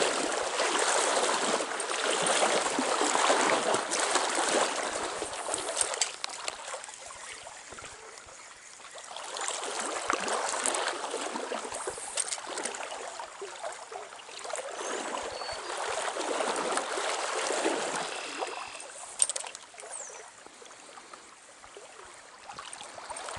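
Small trout stream rushing and trickling, its water noise swelling and fading several times.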